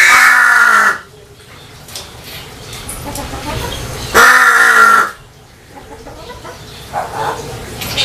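Pet crow cawing: two harsh, drawn-out calls about four seconds apart, each just under a second long and dropping in pitch.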